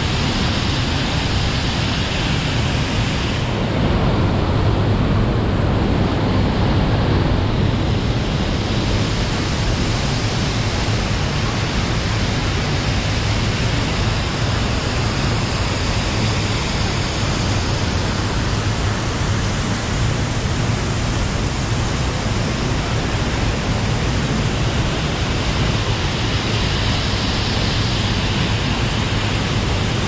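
Waterfall plunging over a cliff into a rocky pool: a steady rush of falling water, its hiss dulling slightly for a few seconds about four seconds in.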